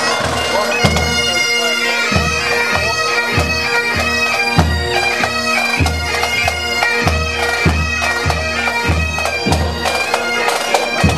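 Pipe band playing a march: Highland bagpipes with their steady drones under the chanter melody, over a regular bass-drum beat with snare drums.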